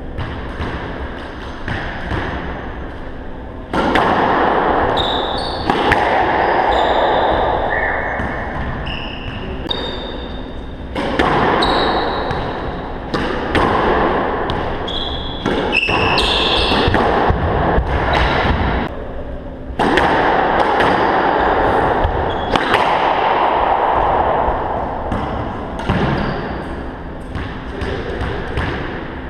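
Squash being played: the ball knocking sharply and irregularly off racquets and the court walls, with sneakers squeaking briefly on the hardwood floor.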